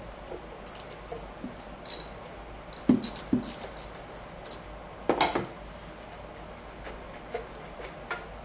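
Scattered metallic clicks and clinks of a 3/4-inch deep-well socket and ratchet working the old spark plug out of a Briggs & Stratton mower engine. The loudest clatter comes about three and five seconds in.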